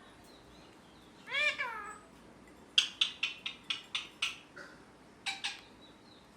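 Pet rose-ringed (ringneck) parakeet calling: one drawn-out, meow-like call that rises and falls about a second in, then a quick run of about eight sharp chirps and, a second later, two more.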